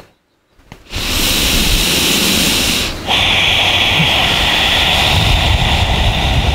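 A loud, steady rushing noise, like wind or running water, that starts abruptly about a second in and drops out briefly near the three-second mark.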